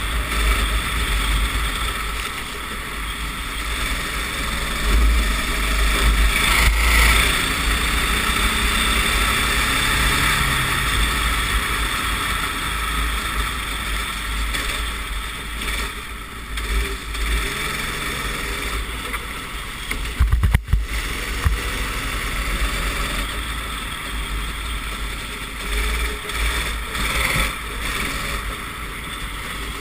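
Racing kart engine running under load through a wet lap, with wind and water spray rushing over the onboard microphone. A short burst of sharp knocks about two-thirds of the way through.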